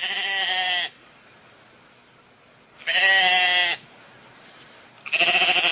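Sheep bleating: three quavering bleats, each under a second long, about two and a half seconds apart, with a faint hiss between them.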